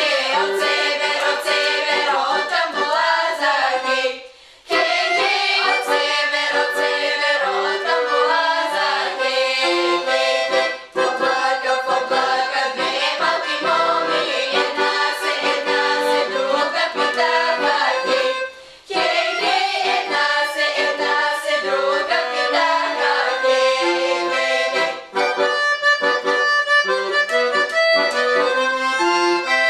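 Instrumental background music with a fast, busy melody, dropping out briefly four times between phrases.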